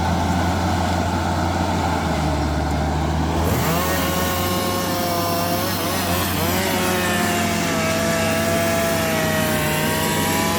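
Bulldozer's diesel engine running steadily with a low hum. From about a third of the way in, a whine joins it and wavers up and down in pitch.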